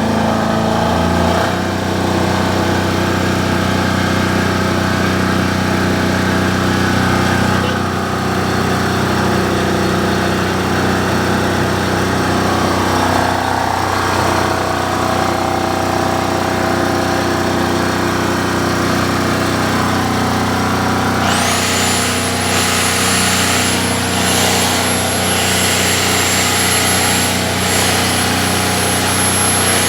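SDG12800E diesel generator engine running at a steady speed, settling slightly lower about a second in. About two-thirds of the way through, a high-pitched whine comes in and holds over the engine sound.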